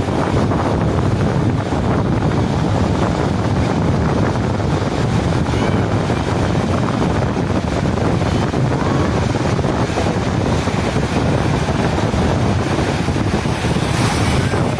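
Sea waves breaking and washing on a beach, heard through heavy wind on the microphone: a steady, unbroken rush.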